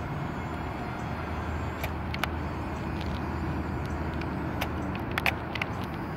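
Electric motors and plastic gears of a 17-channel RC toy excavator working as its upper body swings round: a steady hum with sharp gear clicks, a pair about two seconds in and a cluster near the end.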